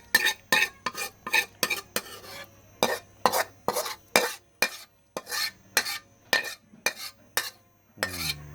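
A metal spoon or spatula stirring a pot, clinking and scraping against its sides in quick strokes, about two to three a second, with brief pauses.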